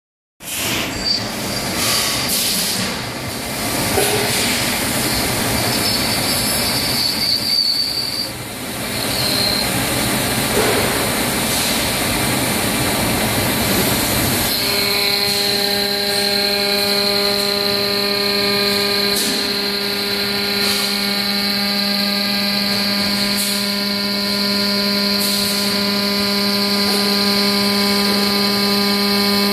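Metal lathe running, turning a gearbox output shaft in its chuck. For roughly the first half it is a rough, noisy machining sound with a few irregular scrapes. About halfway through it settles into a steady whine made of several clear tones.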